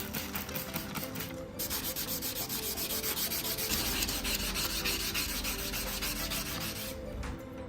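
Steel knife blade rubbed quickly back and forth against an abrasive by hand, about five strokes a second. The strokes break off briefly about a second and a half in and stop about seven seconds in.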